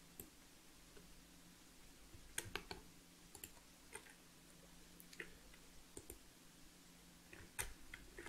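Faint, irregular clicks of computer keyboard keys and a mouse button. There is a small cluster about two and a half seconds in and another near the end, over a faint steady low hum.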